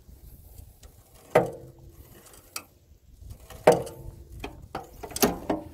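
Attachment lift lever on a Simplicity 6216 garden tractor being worked, giving sharp metallic clanks that ring briefly: one about a second and a half in, one near four seconds, and a quick pair near the end as it latches.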